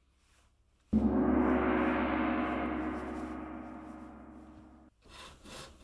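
A single gong strike about a second in, ringing with a deep steady tone that slowly fades, then cuts off abruptly near the end.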